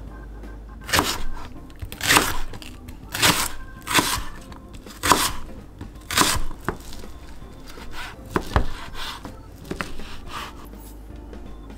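Kitchen knife slicing through a spring onion on a cutting board: crisp cuts, about one a second. After that come softer, scattered cuts through sheets of fish cake.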